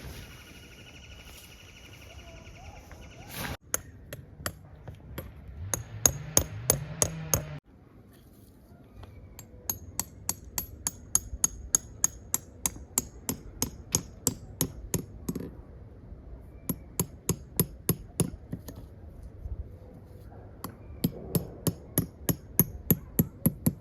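Rapid hammer strikes, about three or four a second, in several runs with pauses between: stakes being driven in to pitch a tarp.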